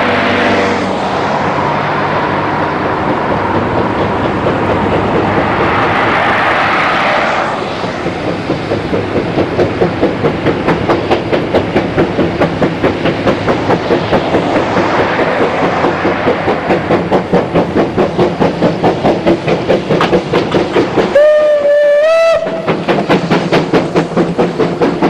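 Zillertalbahn narrow-gauge train passing close: a steady rush at first, then a regular clickety-clack of wheels over rail joints at about four beats a second. Near the end the train sounds one warning blast, about a second and a half long.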